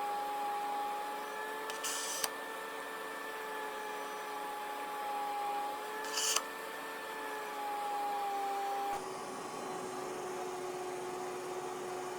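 A small electric motor running with a steady whine, with two brief hisses about two and six seconds in. The whine drops to a single lower tone about nine seconds in.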